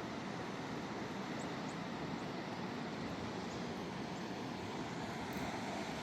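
River water rushing: a steady noise of flowing water, with a few faint high chirps between about one and a half and four seconds in.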